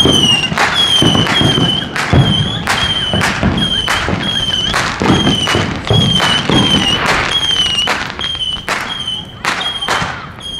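Fireworks going off: a regular series of sharp cracks about twice a second, each with a short high whistle, over irregular low booms.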